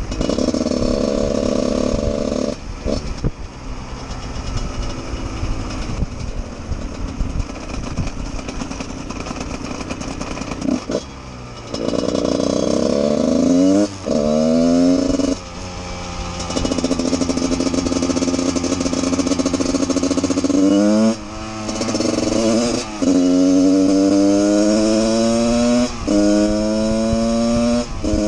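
Husqvarna 144 SMR supermoto's two-stroke engine under way. It is held at steady revs at first, then off the throttle for several seconds, then pulls hard through the gears: the pitch rises and drops at each upshift, several times in quick succession near the end. Wind rushes over the microphone.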